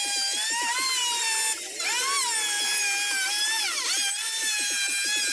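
Handheld electric router running and cutting into a wooden door panel, its motor whine sagging and recovering in pitch as the bit bites into the wood, most sharply about four seconds in. A fast, even chatter runs underneath.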